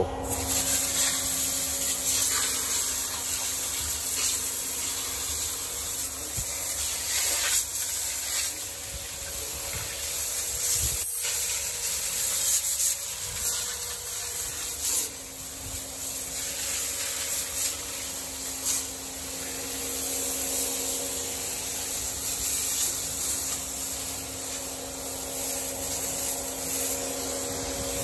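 High-pressure water jet from a pressure-washer wand spraying the steel agitator shaft and walls inside a concrete pump hopper, washing off concrete residue: a steady hiss with a faint steady hum underneath.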